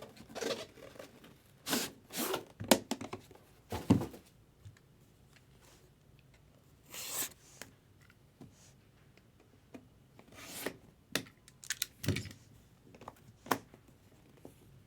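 Trading-card packaging being handled and opened: a series of short tearing and rustling sounds with sharp clicks and light knocks in between.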